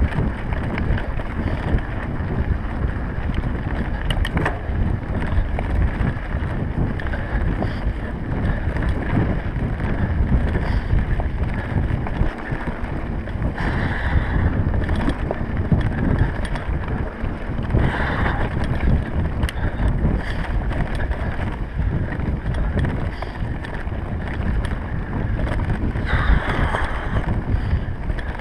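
Wind buffeting the microphone of a camera carried on a mountain bike, over the steady rumble and rattle of the bike rolling fast along a rough dirt road. A few brief hisses come and go.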